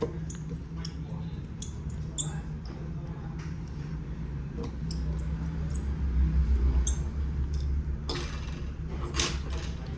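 Scattered light clicks and taps of a phone and small repair tools being handled during a screen replacement, over a low steady rumble, with a short rustling scrape near the end.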